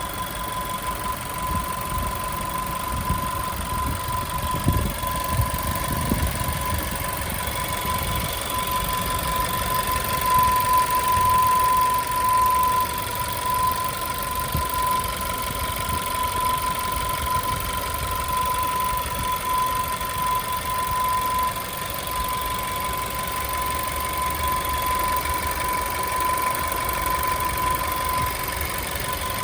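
VW Tiguan's 1.4 TSI (CZDA, 150 hp) petrol engine idling warm with a loud, steady high whistle over the engine's low running noise. The whistle is an unexplained fault on a nearly new engine.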